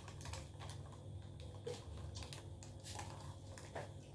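Faint eating and paper-plate handling sounds, a few soft clicks over a low steady hum.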